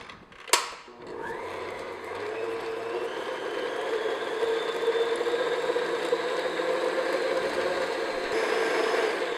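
Electric stand mixer switched on with a click of its speed knob, its motor spinning up over a couple of seconds and then whining steadily at medium-high speed as the paddle creams butter and sugar.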